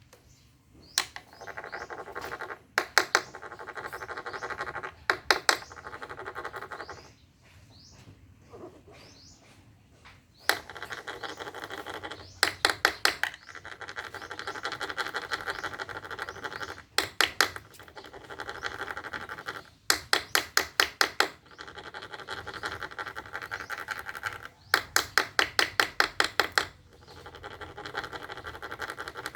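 Two gamecocks fighting: repeated bursts of rapid slapping and clattering strikes every couple of seconds, with a steady scuffling noise between them.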